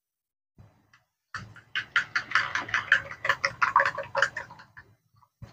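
Fork beating eggs in a ceramic bowl, clinking against the sides in quick strokes of about six a second. It starts a little over a second in and stops just before the end.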